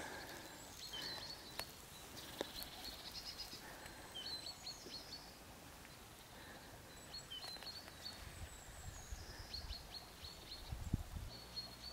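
Faint songbirds singing: repeated phrases of short high chirps, some falling in pitch, with a brief low rumble about eleven seconds in.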